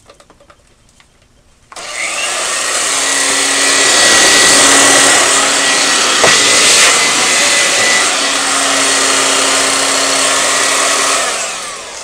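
Hoover Concept Two Electronic upright vacuum cleaner switched on about two seconds in, running loudly with a steady whine, then shutting off and winding down near the end. Its motor sounds like it could use a good bearing cleaning or new carbons.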